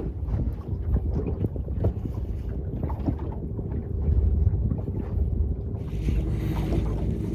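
A fishing boat at sea: a steady low engine hum, with wind buffeting the microphone and small irregular knocks and ticks.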